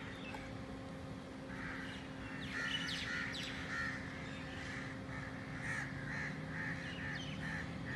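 Crows cawing repeatedly, the calls coming faster in the second half, over a steady low hum.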